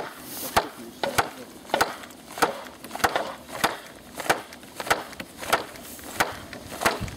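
Hatchet knocking a wooden fence post down into the ground, a steady run of about a dozen wooden blows, roughly three every two seconds.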